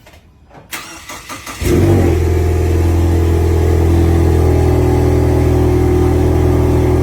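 Car engine cranked by its starter and catching about a second and a half in, then settling into a steady idle.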